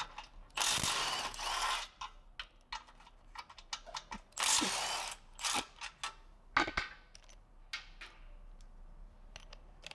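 Hand ratchet wrench clicking in two runs of about a second each, with scattered clicks and taps of tools on metal between them: bolts being loosened.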